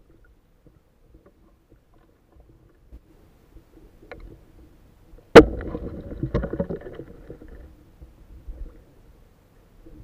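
Underwater speargun shot: one sharp crack about halfway through, followed by a couple of seconds of knocking and rumbling that die away.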